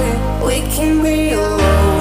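Pop-style show soundtrack music with a sustained bass note under a gliding melody; the bass steps to a new note near the end.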